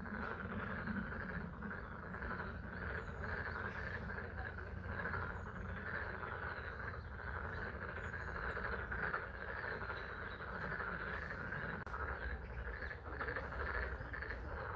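A chorus of many frogs calling together at a pond, steady and continuous, over the soft hiss of spring rain and a low rumble.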